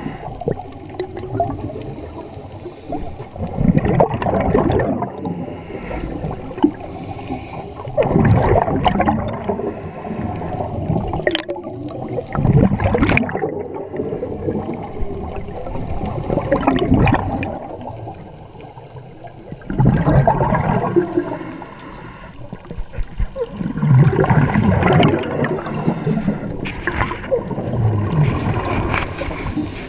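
Scuba regulator breathing heard underwater: bursts of gurgling exhaust bubbles, about every four seconds, with quieter gaps between breaths.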